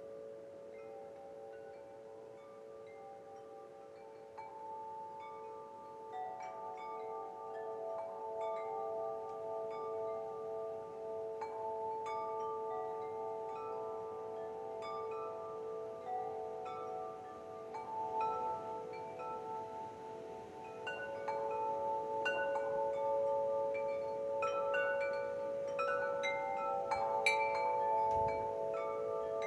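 Wind chimes ringing, with overlapping notes that hang and ring on. The strikes come more often and louder in the second half.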